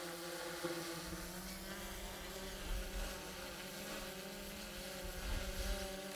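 DJI Mavic 3 drone's propellers buzzing steadily as it hovers, heard close from a camera mounted under it. There are a few brief low bumps of wind on the microphone.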